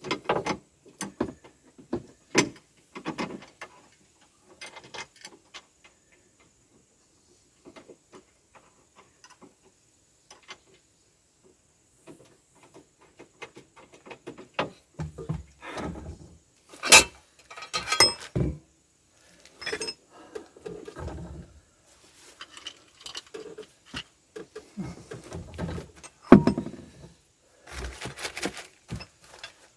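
Irregular clicks, knocks and metallic clinks of tools, bolts and metal parts being handled while a mounting plate is fitted, with a quieter stretch near the middle and the sharpest knock a little past halfway.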